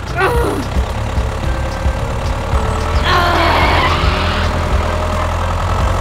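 Tractor engine running steady and low, with a falling whine right at the start and a louder, rougher rush from about three seconds in that lasts over a second.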